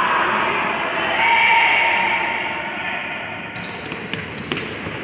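Futsal players shouting and calling across a large, echoing sports hall, with a few sharp knocks of the ball being kicked about four seconds in.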